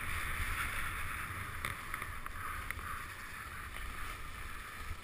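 Skis sliding and scraping over packed snow, a steady hiss, with wind rumbling on the camera microphone; it eases off gradually as the skier slows.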